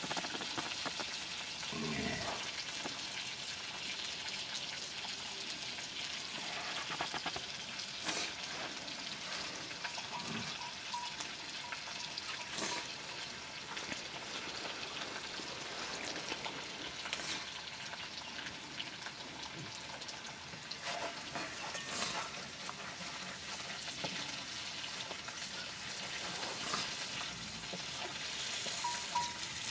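Food sizzling steadily in a metal pan over an open wood fire, with scattered small crackles and knocks. Near the end a wooden spatula stirs the pan.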